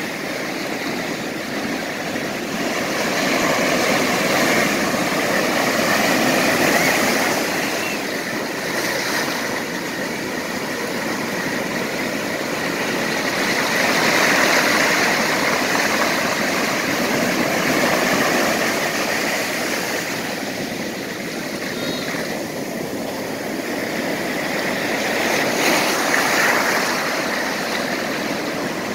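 Ocean surf: waves breaking and foaming whitewash rushing up the shore, a continuous rush of water that swells louder every several seconds as each wave breaks.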